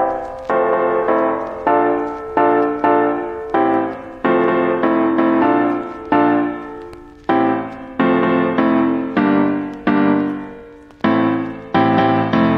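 Background solo piano music: chords and notes struck about once or twice a second, each fading away before the next.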